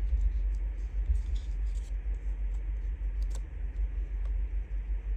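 Hands handling a small paper envelope and a glue bottle on a tabletop: scattered light clicks and taps, with a short paper rustle about a second in, over a low rumble.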